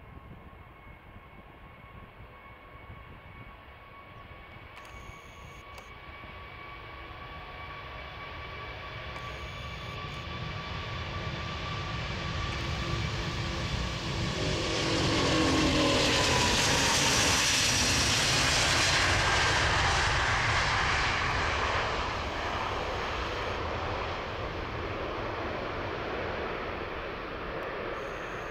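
Airbus A380-841's four Rolls-Royce Trent 970 turbofans at takeoff thrust. Engine noise with a steady whine grows louder as the aircraft rolls closer. About halfway through the whine drops sharply in pitch as it passes, and the roar peaks and then slowly fades as it climbs away.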